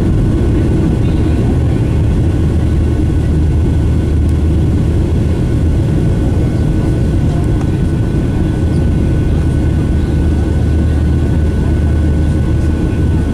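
Boeing 737-800 cabin noise over the wing: the CFM56-7B jet engines and airflow make a loud, steady, low drone with a faint high whine over it.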